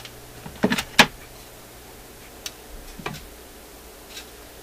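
Handling noise: a few sharp knocks and clicks as a digital multimeter and its test leads are picked up and set down on the workbench, the loudest about a second in. A steady low hum runs underneath.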